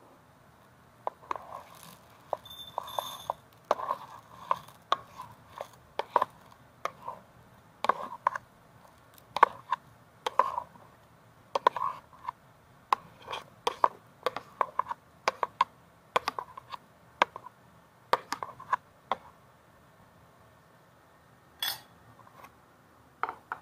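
Metal spoon scraping and clinking against a plastic baby plate and a ceramic slow-cooker pot as food is spooned across, a quick irregular run of clinks and scrapes that stops about 19 seconds in, with two more clinks near the end.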